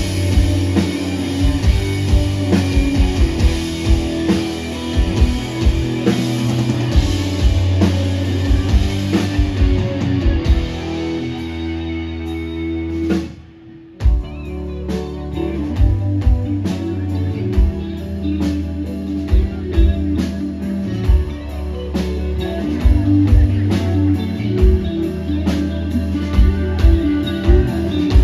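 Rock band playing live on electric guitars, bass and drum kit with a steady beat. About twelve seconds in, the drums stop and the music thins and quietens. About two seconds later the full band comes back in together on a hit.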